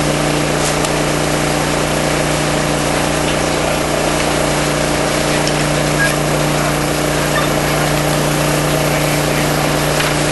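Steady engine drone with a constant low hum, typical of a fire engine running its pump to supply hose lines. Over it runs an even rushing hiss from the fire and water streams, with a few faint crackles.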